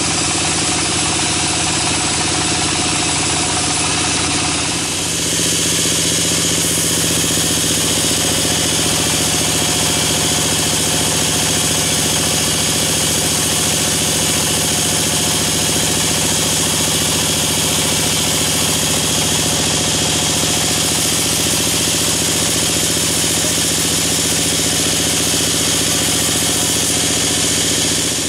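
Band sawmill running with a steady motor drone while its blade rips lengthwise through a log, a high hiss of sawing laid over the drone. A brief dip about five seconds in, then the hiss comes back brighter.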